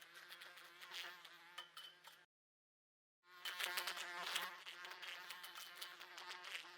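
A fly buzzing and repeatedly bumping against window glass, its steady buzz broken by many small ticks as it hits the pane. The sound cuts out completely for about a second in the middle, then comes back louder.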